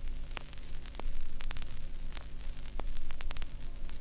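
Steady electrical mains hum with hiss and irregular crackling clicks.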